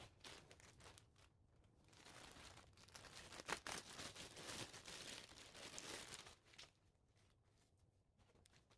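Packaging being torn open and crinkled by hand: a few seconds of tearing and rustling with a sharp snap partway through, then a few faint crackles.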